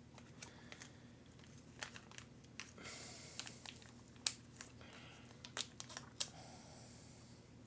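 Small screws and hardware being handled and sorted: scattered light clicks and taps, with plastic crinkling about three seconds in and again near the end.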